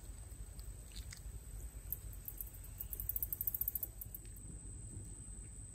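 Woodland insect sounds: a steady high-pitched insect whine, with a rapid run of very high insect chirps peaking about three seconds in, over a low rumble of light wind.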